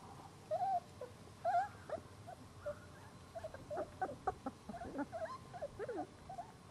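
Labrador retriever puppies whimpering and squeaking: two short whines about half a second and a second and a half in, then a quick run of many short, high squeaks and yips.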